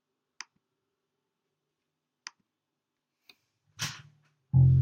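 A few scattered sharp clicks, then a brief scrape, then an electric bass guitar sounds its first loud, low note near the end.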